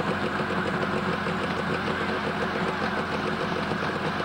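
Small dune buggy engine idling steadily with an even, rapid pulsing beat.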